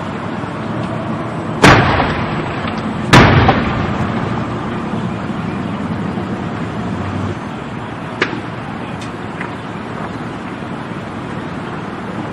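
Two loud explosions about a second and a half apart from a burning diesel tanker truck, each dying away over a second or so, over a steady rushing noise; a smaller bang comes about eight seconds in.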